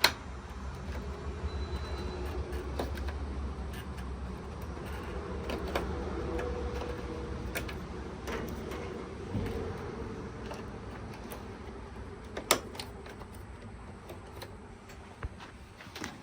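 Scattered clicks and knocks of dryer parts being handled and fitted, with a sharp knock about twelve seconds in, over a steady low hum that fades in the second half.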